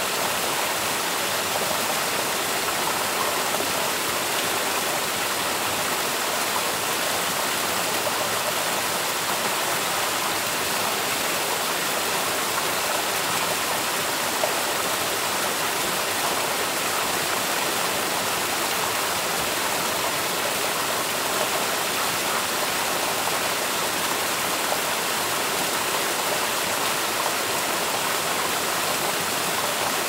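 Steady rushing water, an even unbroken hiss with no pauses or changes.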